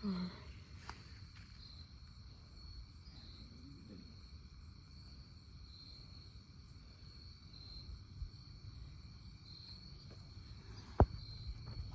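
A steady, high-pitched chorus of insects, with low rumbling outdoor noise beneath. One sharp click comes about eleven seconds in.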